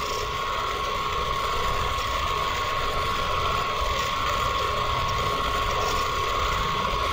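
Steady whirring background noise with a constant high-pitched whine running through it, unchanging throughout.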